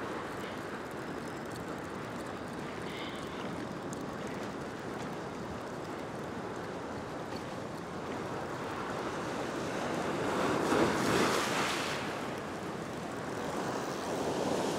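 Ocean swell breaking and washing across a flat rock shelf: a steady wash, with a bigger wave surging louder about ten seconds in and another near the end.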